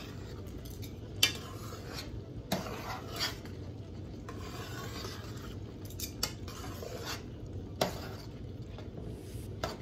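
Metal spoon stirring white rice in an aluminium pot, scraping through the rice with occasional sharp knocks against the pot. Under it, a steady sizzle as the last of the cooking water boils off: the stage where the rice is stirred before the heat is lowered and the pot covered.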